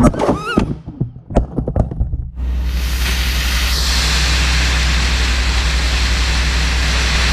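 A racing quadcopter's brushless motors and propellers, heard through the onboard camera: a few short throttle blips rising and falling in pitch. About two and a half seconds in, a steady, loud rushing noise with a low hum cuts in and holds.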